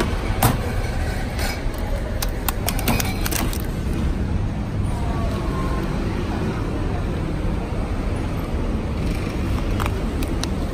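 Steady low background rumble, with sharp clicks and knocks in the first few seconds and once more near the end as a plastic-wrapped boxed frozen meal is taken from the vending machine's pickup port and handled.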